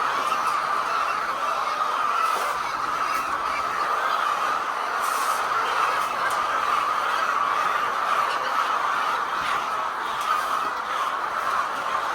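Steady chorus of many laying hens clucking together, a continuous flock din with no single call standing out.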